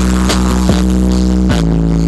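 Loud electronic music played through a large sound system, with heavy sustained bass notes and a regular beat; the bass steps down in pitch near the end.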